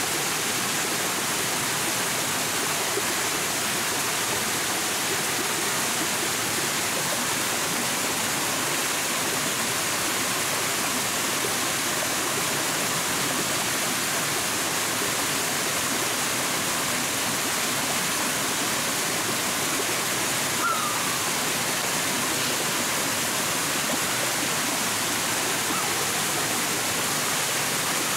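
Steady rushing of a stream, an even wash of water noise without let-up. About two-thirds of the way in there is one short falling chirp.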